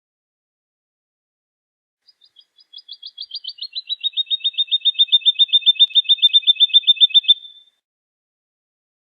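Woodlark singing one phrase: a fast run of repeated, evenly spaced notes, several a second, that starts faint and swells steadily louder, dipping slightly in pitch at first and then holding level before stopping.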